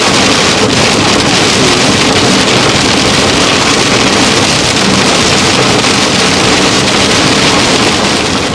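Torrential rain beating on a moving car's roof and windshield, a loud steady hiss heard from inside the car.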